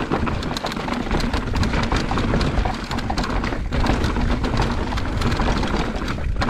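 Electric mountain bike riding over a rocky dirt trail: dense rapid clatter of tyres on rocks and the bike rattling, over a heavy low wind rumble on the action camera's microphone.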